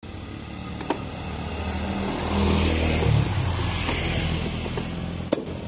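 Small motorcycle engines running, swelling louder about halfway through as motorbikes pass on the road, then easing off. Two sharp clicks, one about a second in and one near the end.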